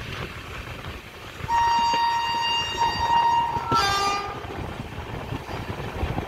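Train horn sounding for about two seconds over the steady rumble of a moving train, its pitch falling sharply as it ends.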